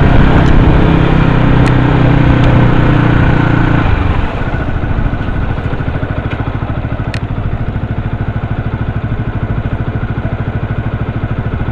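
A vehicle engine running with a steady drone, which drops about four seconds in to a quieter, lower, rapidly pulsing idle.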